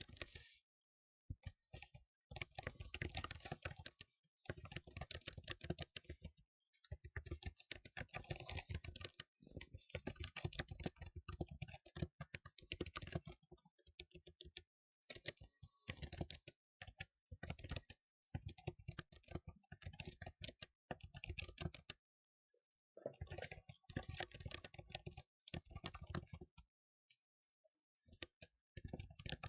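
Typing on a computer keyboard: rapid runs of key clicks lasting a few seconds each, broken by short pauses, with a longer pause near the end.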